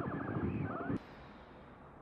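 Plasma ball's electrical buzz picked up by a microphone and run through guitar-amp effects, with a wavering, warbling tone over a dense crackle. It cuts off suddenly about a second in, leaving a faint low hum.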